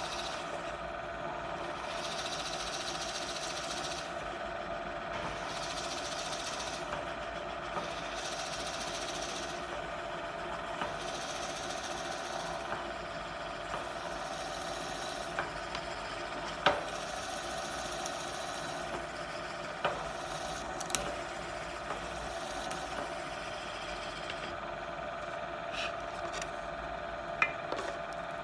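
Drill press motor running steadily while the bit bores into wood in repeated plunges, the cutting hiss coming and going every second or two. A few sharp knocks stand out in the second half.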